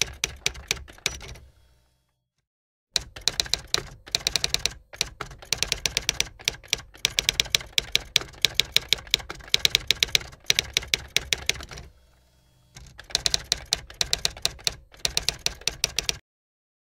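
Typing sound effect: rapid key clicks in runs, going with text being typed out letter by letter. The clicks stop for about a second and a half near the start, pause again briefly about three-quarters of the way through, and end shortly before the close.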